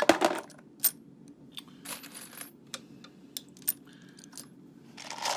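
Brass 9mm cartridge cases and bullets clinking and clicking as they are handled against the metal shell plate of a Dillon 550 reloading press: a loud cluster of clinks at the start, then scattered single clicks, over a faint low steady hum.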